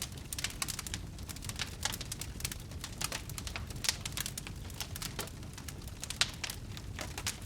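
Fire crackling: many irregular sharp pops and snaps over a steady low rumble, with a few louder pops about four seconds in and about six seconds in.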